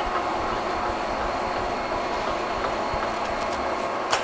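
Graziano SAG 22 engine lathe running at a fairly high spindle speed with the lead screw turning in threading mode: a steady mechanical whir from the headstock and gear train. A sharp click sounds about four seconds in.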